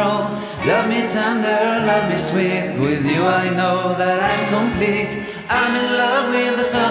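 Background music with singing.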